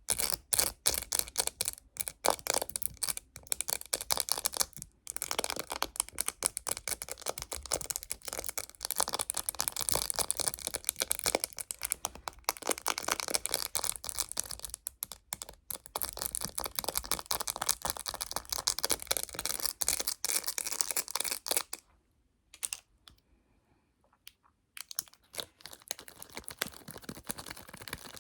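Fingernails tapping rapidly on a phone case, close to the microphone, in dense fast clicks that stop about three quarters of the way through, then resume as a few scattered taps.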